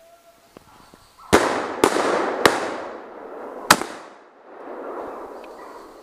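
Hunting rifle firing four shots in about two and a half seconds, each sharp report trailing off in a long echo through the woods.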